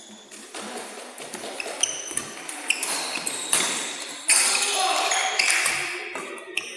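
Badminton rally: rackets striking the shuttlecock and shoes squeaking and scuffing on the court floor, with echoing voices in a large hall.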